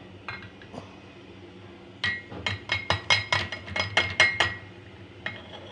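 Spoon clinking rapidly against the inside of a small mug while stirring spices and water into a paste: a run of about five ringing clinks a second for a couple of seconds, starting about two seconds in.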